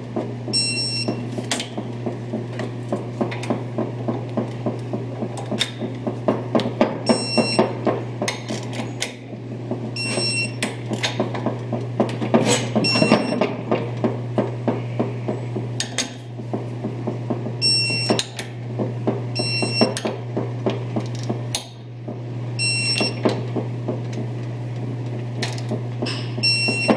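Torque wrench ratcheting and tightening ring-gear bolts on a differential carrier, with rapid ratchet clicks. A short burst of high beeps sounds each time a bolt reaches the set 101 ft-lb, about eight times. A steady low hum runs underneath.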